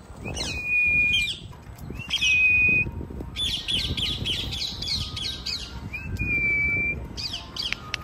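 African grey parrot calls played from a phone speaker to lure a lost parrot: harsh squawks and three long, level whistles, one shortly after the start, one about two seconds in and one about six seconds in.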